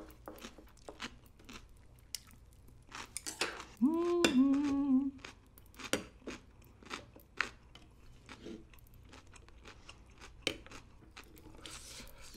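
Close-miked chewing of crunchy food, a run of wet clicks and crunches. About four seconds in there is a hummed "mmm" of enjoyment lasting about a second.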